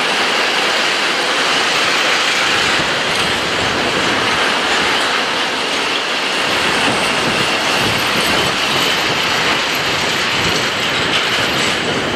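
Freight train of tank wagons rolling past, a steady rumble with a dense clatter of wheels over the track.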